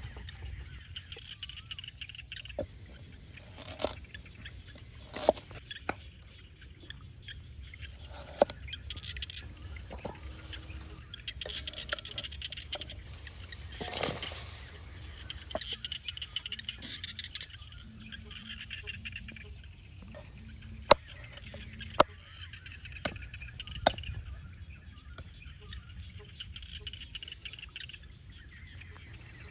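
Sharp single knocks of a cleaver on a wooden chopping block, loudest in a cluster of four or five a few seconds before the end. About halfway through, a short splash comes as chopped carrots slide off the cleaver into a boiling pot. Birds chirp at intervals over a low steady rumble.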